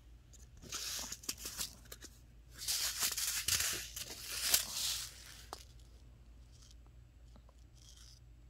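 Small paper seed envelopes rustling and sliding against each other as they are picked up from a pile, in two spells: a short one about a second in and a longer one from about two and a half to five seconds in.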